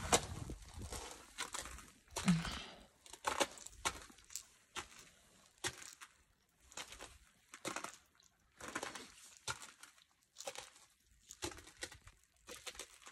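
Repeated crunching strikes in ice and snow, a short crunch roughly every half second to second, from ice-climbing gear biting in or boots stepping.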